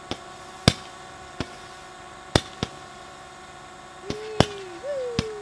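Consumer fireworks launching shots, about eight sharp, irregularly spaced pops. A wavering tone glides down, then up and down again, from about four seconds in.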